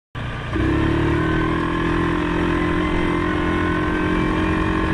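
Engine of a 2019 Suzuki KingQuad 750AXi ATV, a single-cylinder four-stroke, running steadily. It steps up in level about half a second in, then holds an even pitch.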